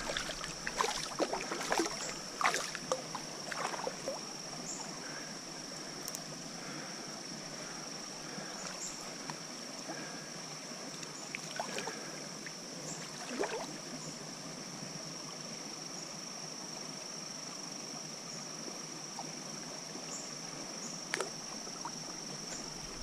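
Stream water running steadily, with scattered small splashes and clicks in the first few seconds and a few more later on. A steady high-pitched whine sits over the water.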